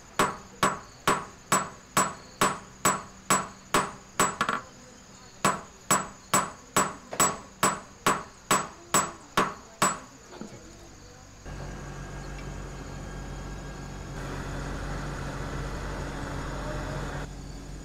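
Small hammer striking a silver leaf on a steel stake, even light strikes about two and a half a second with a short pause about halfway. The strikes stop, and about a second and a half later a gas torch starts a steady rushing noise, heating the silver red-hot to anneal it; it grows louder for a few seconds near the end.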